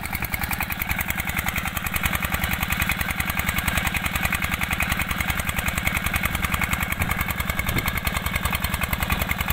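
New single-cylinder stationary diesel engine running steadily, with an even rapid beat from its firing strokes.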